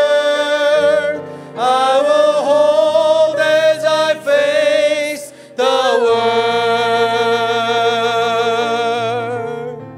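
A man singing a slow worship song into a microphone over instrumental accompaniment, in long held notes with two short breathing pauses, the last note held for several seconds and fading near the end.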